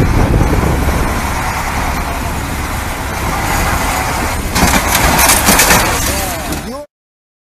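Heavy dump truck running close by, a loud engine rumble with a noisy haze that grows louder about four and a half seconds in as the truck moves past, then cuts off suddenly near the end.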